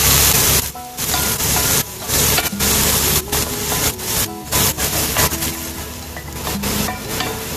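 A wooden spatula scraping and stirring strips of meat in a hot nonstick pot, the meat sizzling, in repeated uneven strokes.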